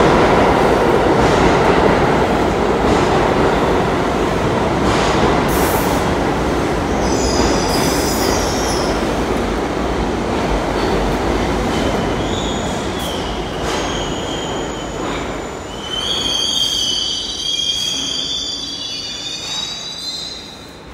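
R62A New York City subway train pulling into an underground station, its rumble slowly fading as it slows. High squeals from the wheels and brakes come and go from about a third of the way in, strongest near the end as the train comes to a stop.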